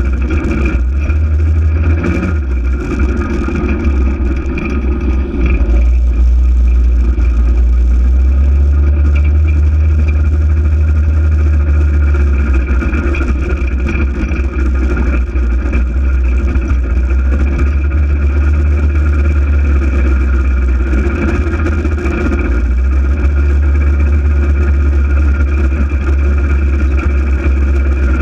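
Polaris RZR 800 side-by-side's engine running under way, with a heavy low rumble and a steady higher drone throughout, getting louder about six seconds in.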